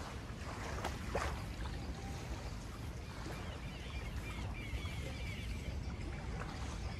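Water moving on the river with wind rumbling on the microphone, a couple of sharp knocks about a second in, and a run of faint high chirps in the middle.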